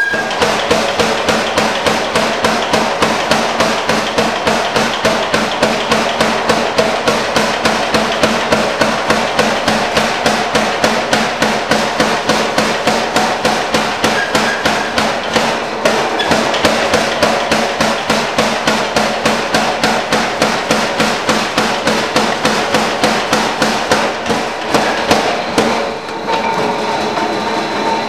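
Power hammer striking a red-hot bar in rapid, even blows, about three to four a second. About two seconds before the end the blows stop and the running machine's hum carries on.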